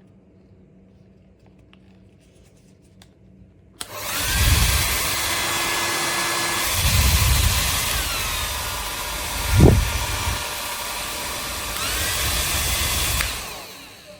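Amurhey 2400W travel hair dryer switched on about four seconds in, blowing with a loud rushing hiss and a motor whine. The whine glides down in pitch about halfway and back up shortly before the dryer is switched off and spins down near the end. Gusts of air hit the microphone as low rumbles.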